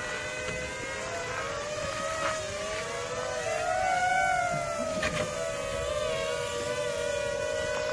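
Small 250-class quadcopter's motors and propellers whining, the pitch wavering up and down as the throttle changes; it grows louder about halfway through as it comes in close and low.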